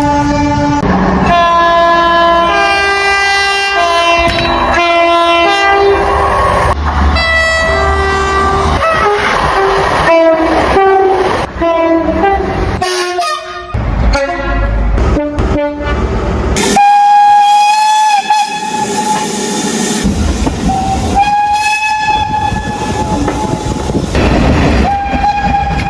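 Train horns sounding in a quick run of separate clips: multi-note blasts stepping between pitches, then longer steady single-note blasts in the last part, over the rumble and wheel clatter of trains on the track.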